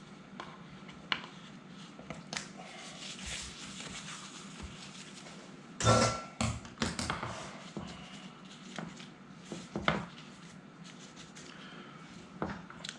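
Kitchen shears snipping at pastry edges with scattered light clicks, and a louder clatter with a brief ring about six seconds in.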